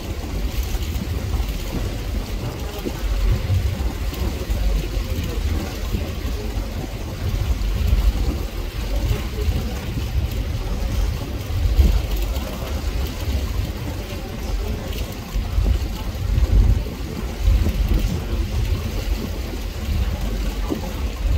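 Staten Island Ferry under way: a low, uneven rumble of the boat's engines and wind buffeting the microphone, with a steady rush of noise above it.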